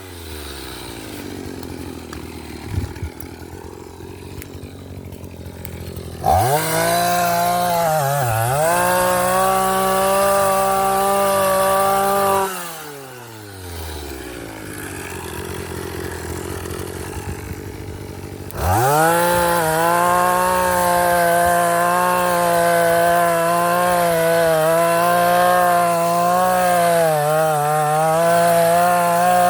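Two-stroke engine of a Vulcan earth auger idling, then revved up about six seconds in, bogging briefly as the bit bites into the soil. It drops back to idle, then is revved again under load, wavering slightly as the auger drills, for the last ten seconds.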